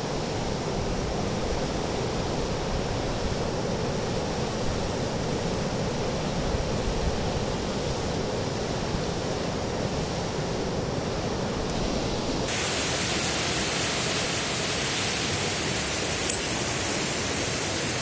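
Steady rush of river rapids and a low waterfall, turning brighter and hissier about two thirds of the way through, with a single sharp click near the end.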